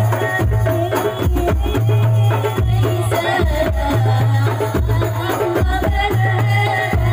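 Rebana ensemble music: hand drums and a deep bass drum keep a steady beat, with rattling jingles and a melody over it.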